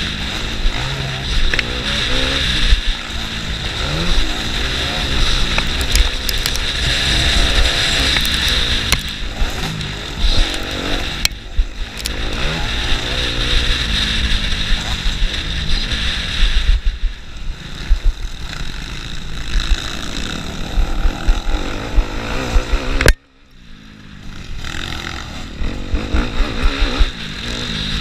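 Motocross bike engine heard from the rider's onboard camera, revving up and easing off through the gears, with heavy rumble and wind buffeting on the microphone. Late on, the sound drops away suddenly for a moment as the throttle shuts, then builds again.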